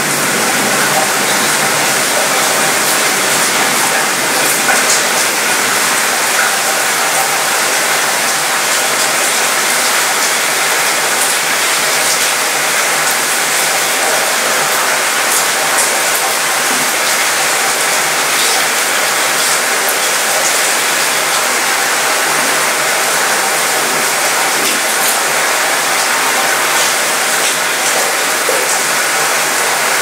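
Steady rain shower falling on a cruise ship's mostly metal balcony, the drops rattling on the metal with scattered sharper ticks.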